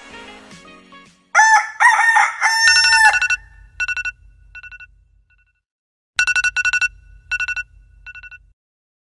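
A rooster crow about a second in, followed by an iPhone alarm ringing. The alarm comes as two rounds of quick electronic beeps, each round dense at first and then thinning out, over a low buzz.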